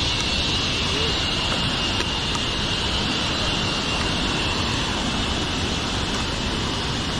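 Steady outdoor forest ambience: a constant high, even buzz over a low rushing noise.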